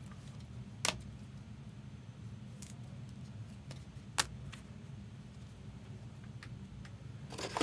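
Chrome trading cards being handled and laid on a stack: a few sharp clicks and taps, about a second in, around four seconds in and near the end, over a steady low hum.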